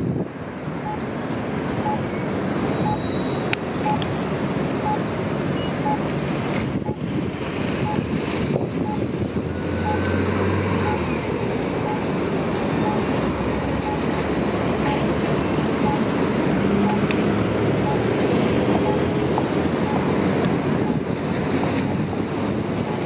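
Street traffic, with a city transit bus driving past. A repeating electronic beep sounds about once a second throughout.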